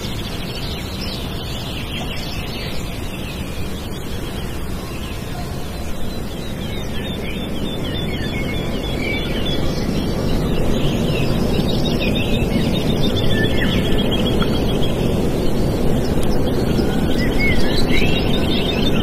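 Small songbirds chirping and trilling over a steady low rushing noise like wind, which grows louder about halfway through.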